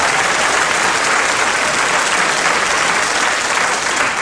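Live audience applauding steadily, many hands clapping at once.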